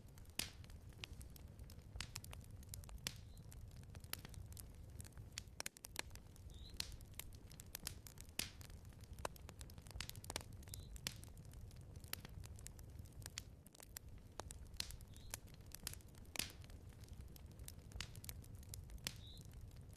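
Wood fire in a fireplace crackling, with frequent irregular sharp pops over a low steady rumble.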